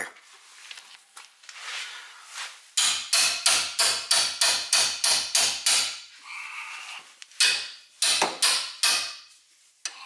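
Hammer striking a wrench fitted on a brake caliper mounting bolt to shock the stuck bolt loose. Faint clinks come first, then two runs of rapid sharp metal blows about three a second, with a short pause between them.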